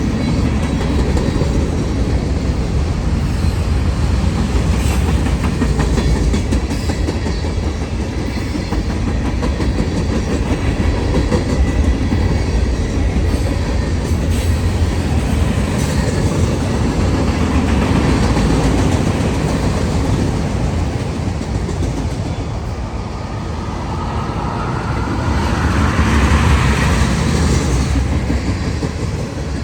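Norfolk Southern freight train rolling past: a steady rumble of wheels on rail with clickety-clack over the rail joints. About 24 seconds in it swells louder, with a higher ringing tone.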